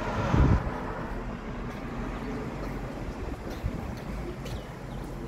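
Street ambience: wind rumbling on the microphone and a car driving past, with a brief low thump about half a second in.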